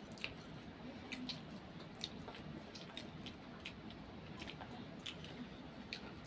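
Two children slurping and chewing instant noodles, with many short, irregular wet clicks and smacks of eating.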